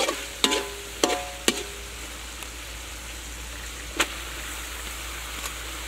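Pork stir-frying in a hot wok: a steady sizzle, with a metal spatula clinking against the wok four times in the first second and a half, each clink ringing briefly, then one more clink about four seconds in.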